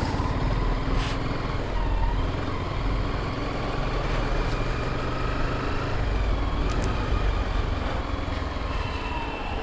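A motorcycle engine running at low speed in slow town traffic, heard from the rider's seat as a steady rumble with road noise. Other vehicles pass close by.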